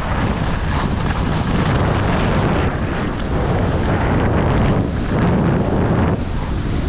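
Wind buffeting the microphone of a skier's body-worn camera while skiing downhill, a loud low rumble, with the hiss of skis sliding over packed snow swelling and fading every second or two.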